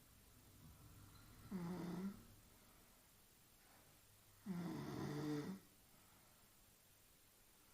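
A woman snoring in her sleep: two loud snores about three seconds apart, the second one longer.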